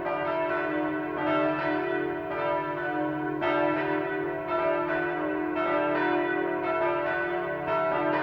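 Full peal of the Schüpfheim parish church bells: several swinging bells ringing together in a steady stream of overlapping strokes. The strongest strokes come about once a second, and the many tones ring on between them.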